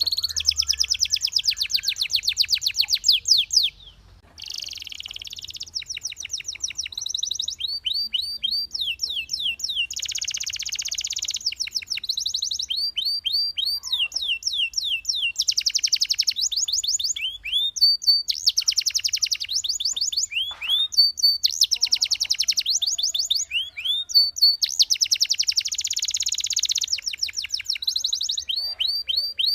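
Belgian canary singing a continuous, high-pitched song of fast trills and rolls. Phrases of rapidly repeated notes follow one another with only short breaks, and there is a brief pause about four seconds in.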